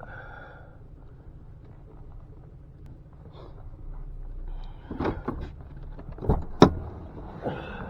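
Pickup truck engine running with a low, steady hum, then a few clunks and knocks, the loudest a sharp slam of the truck's door a little over six and a half seconds in.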